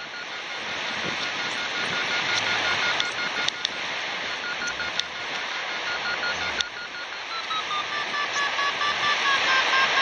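Paragliding variometer beeping rapidly at a steady pitch during a winch-tow climb, with wind rushing over the microphone. About seven seconds in, the beeps drop lower in pitch.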